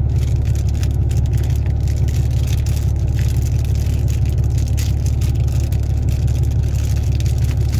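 Steady low motor rumble with faint crinkling of a cookie wrapper being handled.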